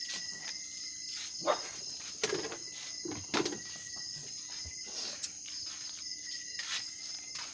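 Steady high-pitched chirring of night insects, crickets among them, with a few sharp clicks and knocks around the middle.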